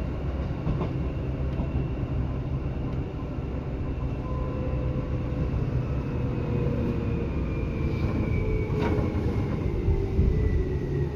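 Seibu 2000 series electric train running, heard from inside the car. A steady low rumble of the wheels on the rails carries thin motor whine tones that slowly fall in pitch, with a couple of short clicks, one about a second in and one near the end.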